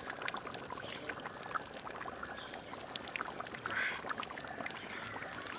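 Coconut oil being poured into a large pot of simmering fish curry, the curry bubbling with a fine, steady crackle. A brief louder hiss comes about four seconds in.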